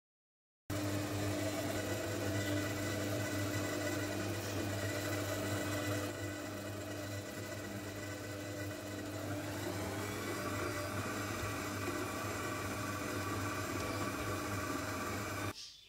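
Kenwood stand mixer's motor running steadily as its flat K-beater mixes butter, egg and powdered sugar in the steel bowl. It starts under a second in and stops shortly before the end.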